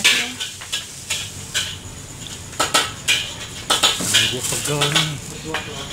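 Metal kitchen utensils clinking and clattering in a run of irregular sharp knocks.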